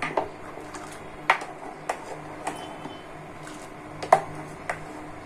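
A spoon clicks against the side of a stainless steel saucepan while stirring milk that is being boiled down. There are several sharp, irregular clicks, the loudest about four seconds in, over a low steady hum.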